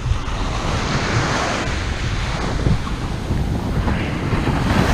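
Ocean surf breaking and washing up the beach, swelling twice, with wind buffeting the microphone.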